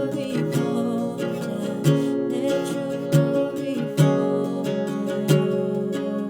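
Acoustic guitar strumming sustained chords, with a sharp strum roughly every second and no singing.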